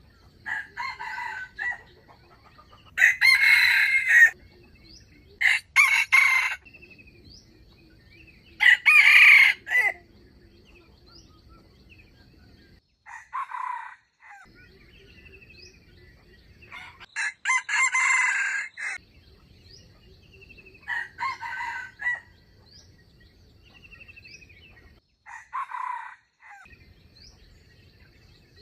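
Wild rooster crowing again and again, about eight crows each a second or so long with pauses of a few seconds between them, over a faint steady high tone.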